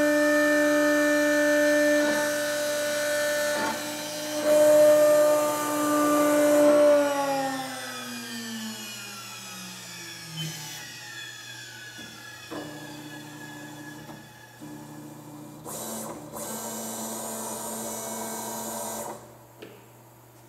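CNC engraving machine's spindle whining steadily at speed, then spinning down with a falling pitch about seven seconds in. A quieter motor hum from the gantry carrying the head follows and stops shortly before the end.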